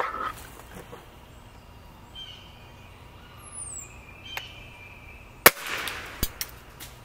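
A spring-piston pellet rifle fires once, a single sharp crack about five and a half seconds in, dieseling on a dab of oil in the chamber for extra power. A short rush of noise and a few small knocks follow right after the shot.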